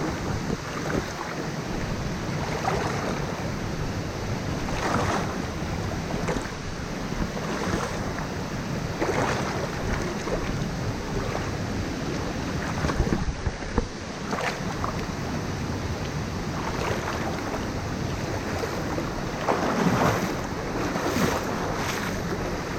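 Rushing river water, a steady wash with irregular swells, with wind buffeting the microphone.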